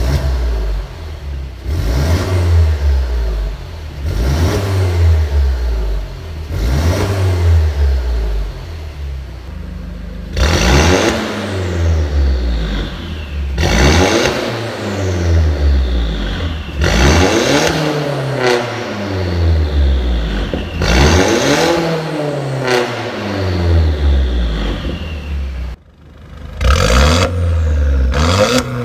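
Mercedes-Benz W204 C250 coupe with an Armytrix valvetronic exhaust being free-revved while standing still: a dozen or so blips, each engine note rising and then falling. About ten seconds in the exhaust valves are opened and each rev comes through brighter and harsher. After a brief drop near the end, revving starts again.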